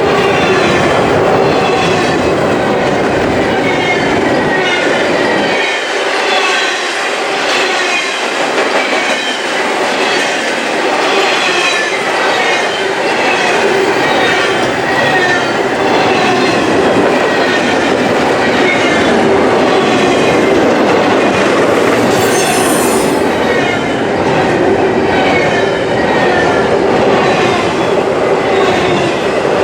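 Freight train cars rolling past steadily, wheels clicking over the rail joints with repeated short flange squeals.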